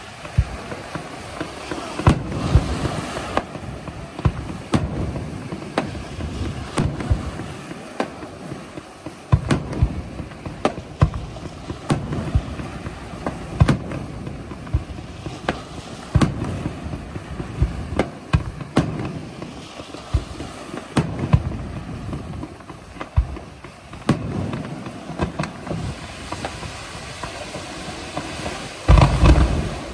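Fireworks display: aerial shells going off in irregular sharp bangs, several a few seconds apart, over a continuous hiss and rumble, with a loud cluster of booms near the end.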